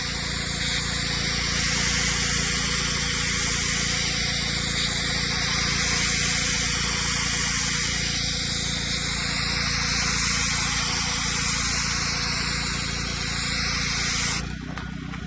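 Pressure washer spraying a high-pressure jet of plain water onto a propane tank, a steady loud hiss over the washer's engine running underneath, to strip dirt and mildew. Near the end the spray cuts off suddenly and only the engine keeps running.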